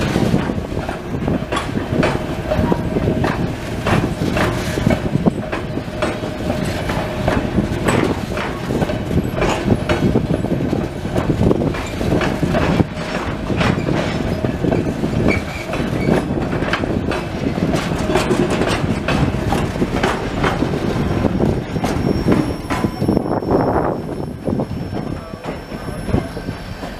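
Narrow-gauge passenger coaches of the White Pass & Yukon Route rolling slowly past close by. Their wheels knock and click irregularly over the rail joints over a low rumble, with a thin wheel squeal.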